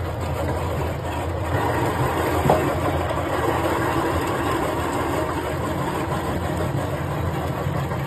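Industrial electric meat grinder running steadily, a constant motor hum and churn as chunks of raw meat are fed in and ground, with one short knock about two and a half seconds in.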